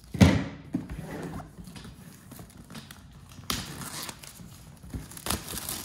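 Plastic shrink-wrap crinkling and tearing as it is peeled off a cardboard box, with scattered knocks of the box against the table. A loud thump comes about a quarter second in, and the crackle of the film is loudest about three and a half and five seconds in.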